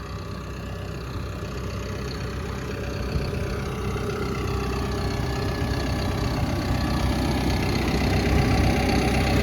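Caterpillar D5K2 XL crawler dozer's diesel engine running while the machine is driven into its parking spot, growing steadily louder.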